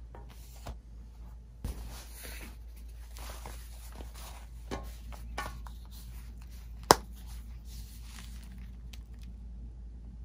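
Packaging being handled: rustling and crinkling with scattered light taps and clicks, and one sharp loud click about seven seconds in.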